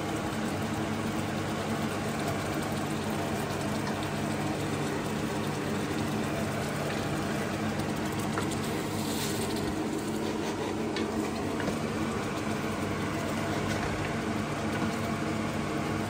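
Blended curry base frying in oil in a stainless steel pot, bubbling and sizzling steadily as it is stirred with a wooden spoon, with a few light clicks of the spoon against the pot. A steady low hum runs underneath.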